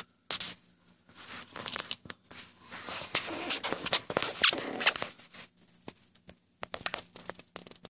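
Irregular rustling and scraping handling noise, louder about three to five seconds in, with brief drop-outs between bursts and a faint steady low hum underneath.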